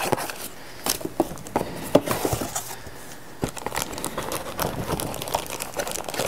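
Hands handling cardboard camera-box packaging and paper inserts: irregular rustling, scraping and small knocks of cardboard and paper.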